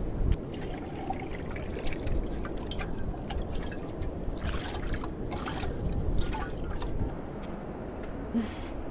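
Water splashing and pouring as a cooking pot is rinsed out, with short knocks and clatters against the pot.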